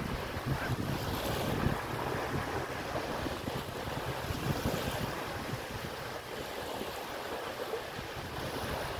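Shallow sea surf washing in steadily, with gusty wind buffeting the microphone.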